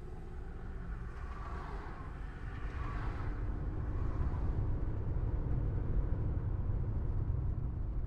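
Cabin noise inside a car driving on a busy road: a steady low rumble of engine and tyres, with a brief swell of higher hissing noise from about one to three seconds in.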